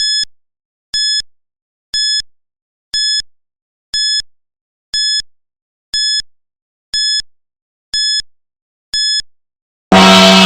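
Countdown timer's electronic beep sounding once a second, ten short high beeps marking the final seconds. Near the end a loud gong strikes and rings on, signalling that time is up.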